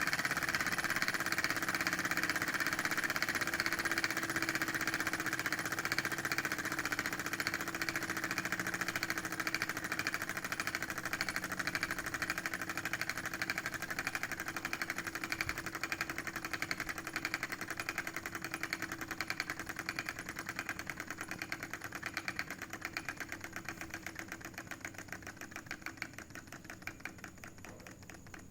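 Small model Stirling engine running with a fast, even mechanical clatter that gradually grows quieter.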